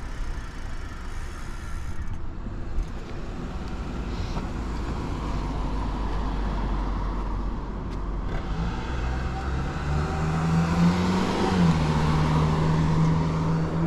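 Cars driving past close by, with engine and tyre noise; the nearest one gets louder in the second half, its engine hum rising slightly, then holding steady as it goes by.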